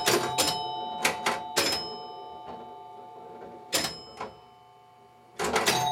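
1972 Bally Little Joe electromechanical pinball machine in play: sharp mechanical clacks with the ringing tones of its retrofitted chime set (two door chimes and a bell) hanging on after the strikes. The hits come in a run early on, thin out to two single strikes in a quieter middle stretch, and pick up again quickly near the end.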